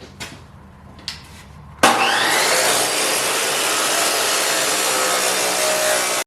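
Pneumatic needle scaler starting up about two seconds in and running steadily, a loud hard buzz, as it scales the rough torch-cut steel; a few light handling clicks come before it.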